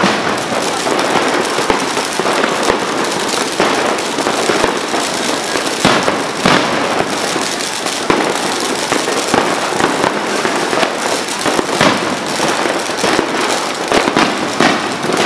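Fireworks going off at street level: a loud, dense, unbroken crackle with frequent sharp pops.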